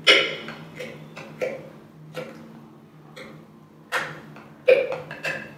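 Muddler knocking and pressing blackberries in a stainless steel cocktail shaker tin: about a dozen irregular knocks, the loudest right at the start and another strong one about four and a half seconds in.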